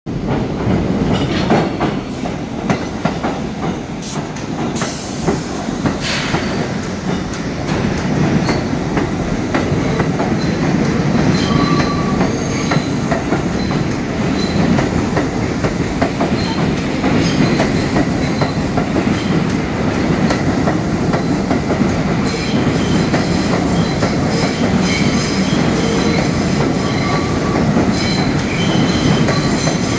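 New York City Transit R62A subway train on the 1 line pulling out of the station and running past the platform. Its wheels clack steadily over the rail joints, with short high squeals now and then.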